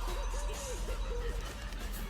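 Music with an eerie melody of short, repeated notes. It is the creepy ending of a K-pop performance, where a creepy doll-like tune has been added in the background.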